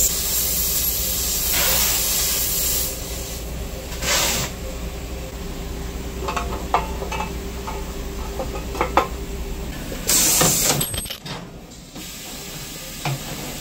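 Compressed air hissing from the pneumatic lines of an automatic waistband elastic joining machine, in loud bursts about two, four and ten seconds in over a steady hum, with small clicks of parts being handled. The hiss and hum cut off about eleven seconds in.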